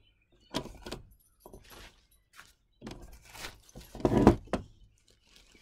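Handling noises from a wooden chair seat being worked on a table: several short rustles and knocks, the loudest about four seconds in.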